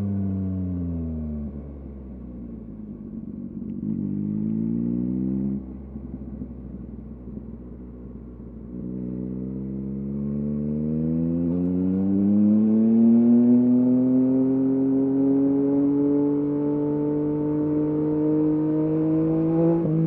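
2023 Yamaha MT-09's 890 cc inline-three engine through a LeoVince LV Race exhaust. The revs fall as the bike slows and stay low for several seconds, with a short rise that cuts off about five seconds in. From about nine seconds in the revs climb steadily and the engine gets louder as the bike accelerates.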